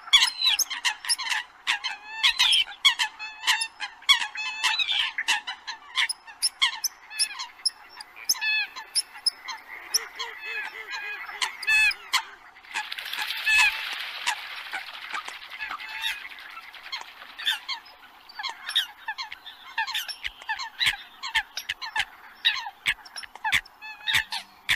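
Eurasian coots calling: a dense run of short, sharp, honking calls, many overlapping and coming several a second, with a stretch of hissing noise a little past halfway. It is a recorded coot call track played as a lure to draw coots in for trapping.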